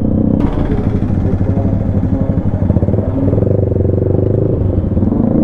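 Yamaha MT-15's single-cylinder engine running at a steady cruise through an aftermarket Akrapovic exhaust. Wind hiss on the microphone joins in about half a second in.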